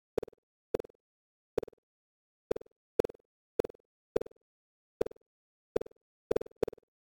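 Computer-generated bounce sounds: short blips, each trailing off in a few quickly fading repeats, about eleven at uneven intervals, with two close together near the end and dead silence between.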